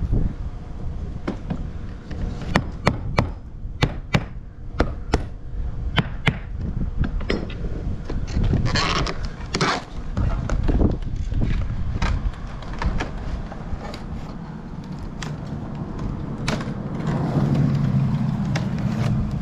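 Hammer driving nails through vinyl siding: a long series of sharp, irregular blows, one or two a second.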